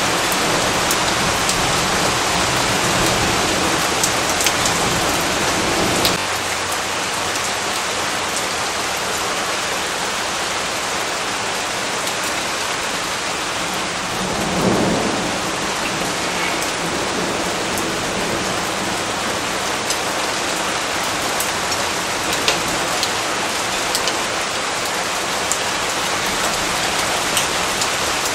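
Steady rain falling, with scattered sharp drop ticks. A low rumble of thunder runs under the rain for the first six seconds and stops abruptly, and a shorter swell of rumble comes about halfway through.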